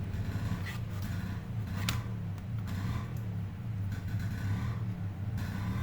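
A steady low hum, with a few faint clicks, the sharpest about two seconds in, from handling the laptop's plastic casing parts.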